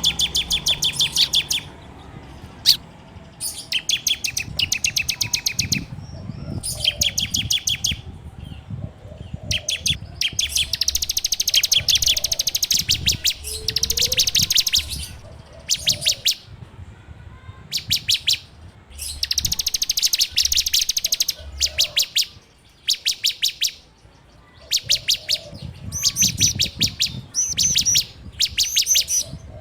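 Ciblek (bar-winged prinia) singing its rapid 'ngebren' song: bursts of fast repeated high notes, each lasting one to two seconds, with short pauses between them.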